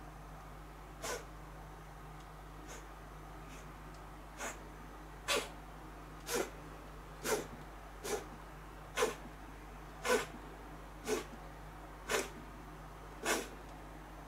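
A hand patting a cat's rump: soft slaps, a couple of faint ones and then a steady run of about one a second from about four seconds in, getting louder.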